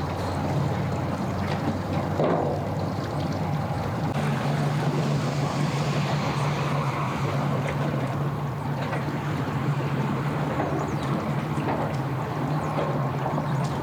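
Bass boat's outboard motor running steadily at low speed as the boat comes in to the ramp.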